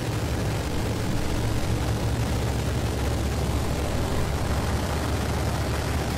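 Waco YMF biplane's radial engine and propeller running steadily in flight, heard from the open cockpit with a heavy rush of wind.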